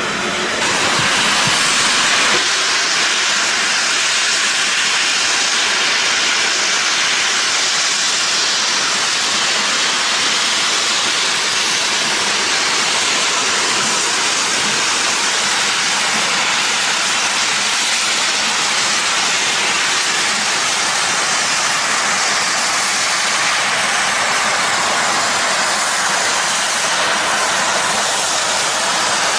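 Loud, steady hiss of steam escaping from steam locomotive No. 45627, without a break.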